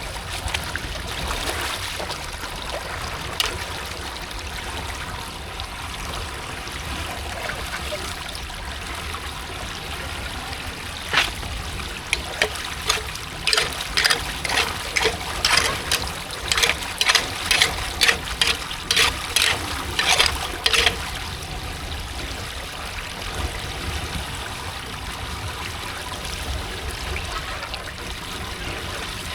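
Floodwater running and trickling steadily into a street drain. Through the middle stretch comes a run of about twenty sharp strikes, roughly two a second.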